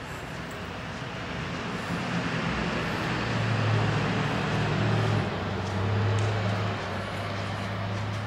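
A passing motor vehicle: engine hum and road noise that swell to a peak about halfway through and ease off again.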